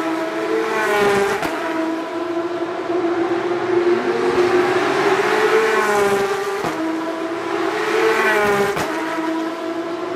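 Porsche 911 race cars' flat-six engines accelerating hard past the wall, the engine note climbing and dropping sharply at each upshift about every two seconds.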